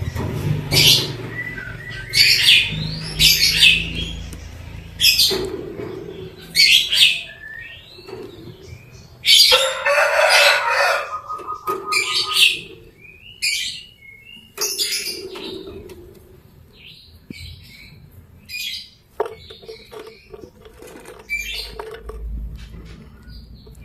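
Fischer's lovebirds giving short, shrill, high-pitched calls, about one a second, with a longer, noisier burst of sound about ten seconds in.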